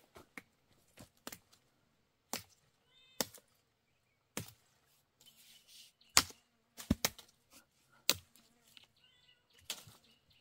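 A series of about a dozen sharp, irregular knocks and clicks, the loudest around six and seven seconds in, with faint short high chirps between them.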